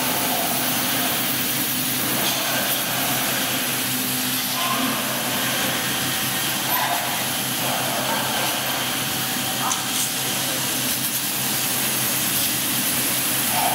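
JQ1630 fabric laser cutting machine running: a steady hiss of moving air with a low hum underneath, and short rising-and-falling whines several times as the cutting head traces curves.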